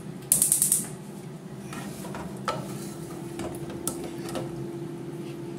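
Wooden spoon stirring pieces of frying beef liver in an aluminium saucepan. There is a quick rapid rattle of spoon on pan about half a second in, the loudest part, then scattered knocks of the spoon against the pan over a low steady hum.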